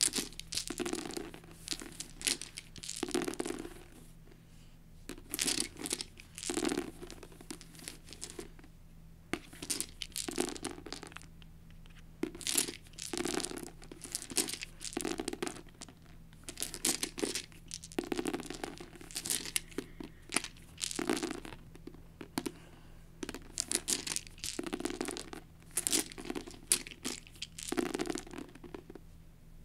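A handful of eight translucent plastic six-sided dice shaken and rolled by hand onto a paperback book cover, clattering in repeated bursts every second or two as they are scooped up and thrown again.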